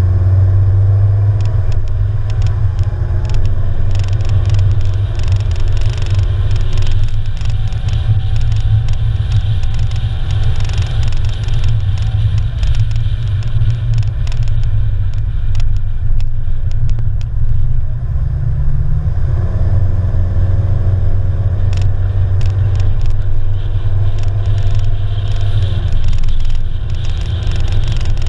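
Car driving at steady speed: a strong low engine and tyre rumble, with frequent small clicks from the road surface. The engine note rises briefly and shifts about eighteen seconds in.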